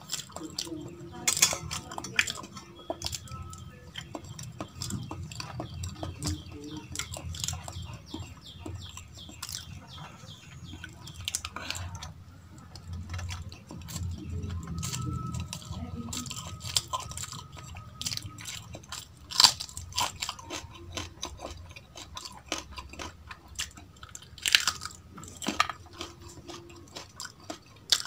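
Close-miked chewing and mouth sounds of a person eating rice and dal by hand, with scattered sharp clicks and smacks and fingers scraping rice across a steel plate.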